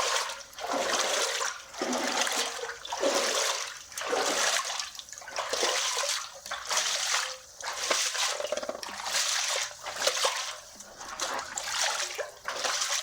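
Feet wading through shallow, cold creek water, with a splash about once a second as each step goes in.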